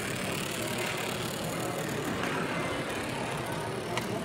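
Caton-designed 009 gauge live-steam model locomotive running along the layout's track, heard over a steady background of hall noise, with a single sharp click near the end.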